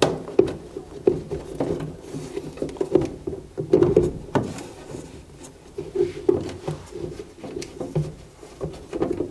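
Irregular knocks, taps and rubbing of parts being handled and fitted as a draft inducer blower is put back into a gas furnace.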